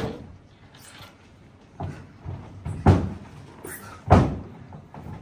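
Three sharp thuds about a second apart during a fencing bout, the last two the loudest, with a brief high scraping hiss just before the last one.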